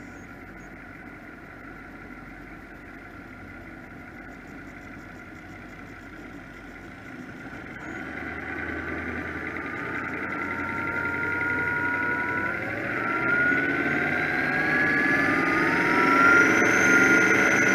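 Offshore powerboat engines running low and steady, then throttling up from about halfway through: a climbing engine whine that grows steadily louder as the boat accelerates, with water splashing near the end.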